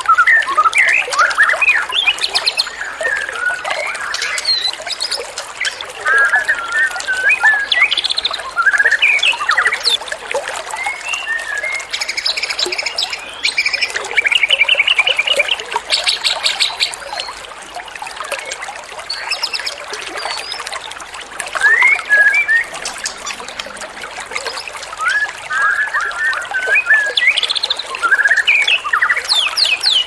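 Small songbirds singing a busy mix of sharp chirps, warbles and quick trills over a trickle of running water, with a fast run of repeated notes about halfway through.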